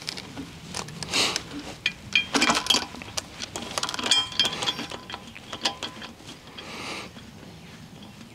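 Steel hydraulic hose fittings clicking and clinking as they are handled and threaded by hand onto the elbow fitting of an auger's hydraulic motor, with a couple of short ringing metallic clinks about two and four seconds in.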